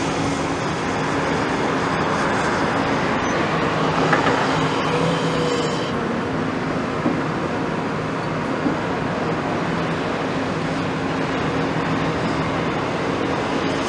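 Caterpillar tracked excavator's diesel engine running steadily under load while it digs sand, with its hydraulics working. A short higher whine rises about four seconds in, and two light knocks come later.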